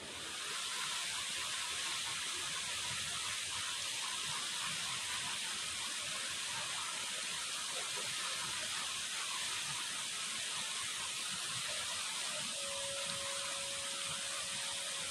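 Shallow rocky river running over stones in small rapids: a steady hiss of rushing water. A faint steady tone joins in near the end.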